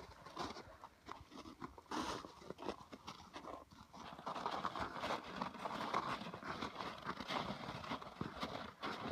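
Footsteps of several people hurrying through snow: an irregular run of crunching steps.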